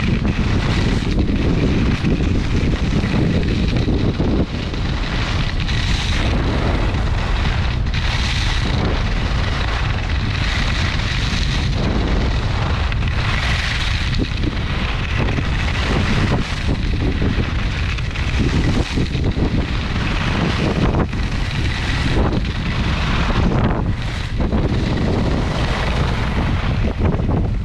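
Wind buffeting the microphone of a camera skiing downhill, a steady low rumble. Over it, skis hiss and scrape on groomed snow, swelling and fading every second or two with the turns.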